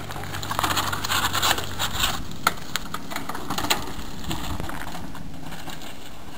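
Mountain bike tyres rolling down a rocky trail, crunching and scraping over rock and grit, with scattered sharp clicks over a steady noisy rush.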